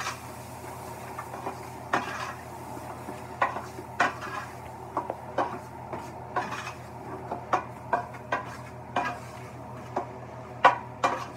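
Metal spoon scraping and clinking against the side and bottom of an aluminium stockpot while diced peppers, onion and garlic are stirred in a roux, in irregular strokes about once a second, over a steady low hum.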